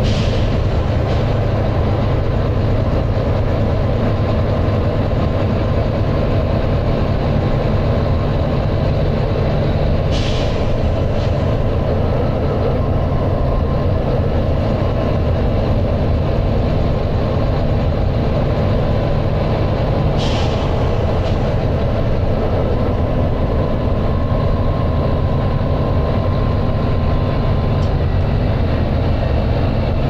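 Volvo B9TL double-decker bus's six-cylinder diesel running at a steady cruise, a heavy low drone heard from inside the cabin. Three short hisses of air from the bus's air system break in, about ten seconds apart.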